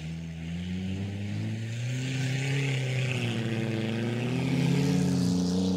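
Engine of a front-wheel-drive figure-8 race car running hard on the dirt track, its pitch rising and falling as it accelerates and lifts, growing louder toward the end.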